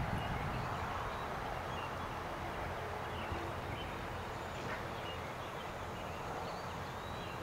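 Steady outdoor background noise with a few faint, short, high chirps scattered through it; no distinct hoofbeats stand out.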